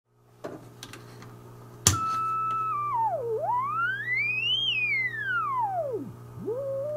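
National NC-173 tube receiver putting out a low hum. A sharp click about two seconds in brings in a whistling beat note from the 1 MHz crystal calibrator signal. As the bandspread dial is turned, the whistle dips, glides up high, falls back down through zero beat, then settles on a steady lower tone near the end.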